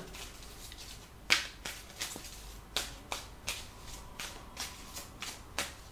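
Tarot cards being shuffled and drawn from the deck by hand: a string of sharp, uneven card snaps, a few a second, starting about a second in.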